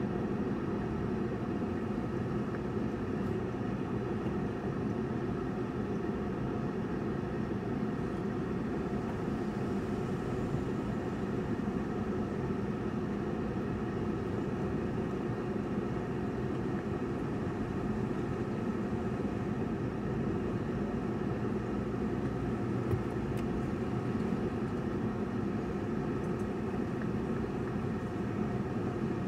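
Steady engine and road noise of a car driving slowly through town, heard from inside the cabin.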